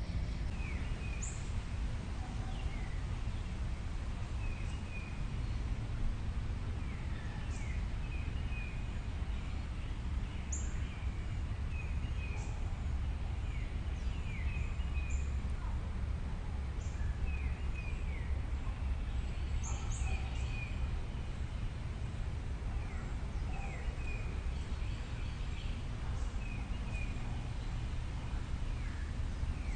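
Small birds chirping repeatedly, short falling notes scattered through, over a steady low rumble.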